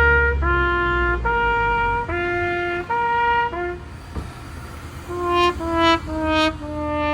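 A horn-like two-tone 'nee-naw' siren alternates between two pitches, each held just under a second, and stops a little before halfway. After a short gap come the sad trombone 'wah-wah-wah-waaah': three short notes stepping down, then a long low note that wobbles.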